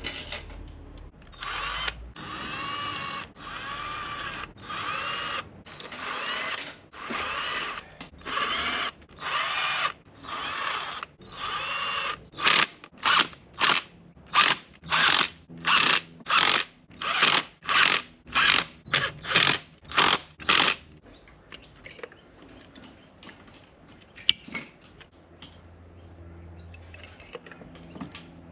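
Cordless drill-driver motor whining in repeated short bursts, about one a second at first, then quicker, sharper bursts about two a second before it stops.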